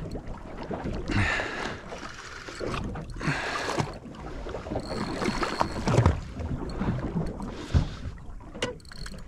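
Water slapping against a small boat's hull in surges every second or two, with wind on the microphone.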